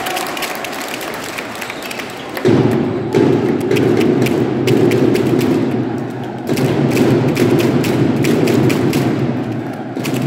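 Basketball arena noise: many sharp thuds and taps over a crowd din that swells sharply about two and a half seconds in, drops briefly around six and a half seconds, then comes back.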